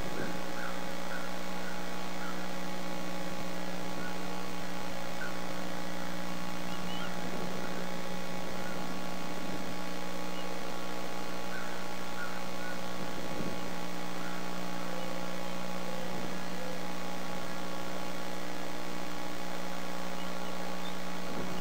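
Steady electrical mains hum on the nest camera's audio feed, with a few faint, brief chirps above it.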